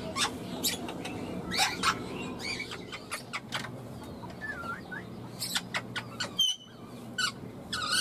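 Rose-ringed (Indian ringneck) parakeet giving a string of short, sharp chirps and squeaks, with a brief whistled note that dips and rises about halfway through and a louder squawk near the end, over a low steady hum.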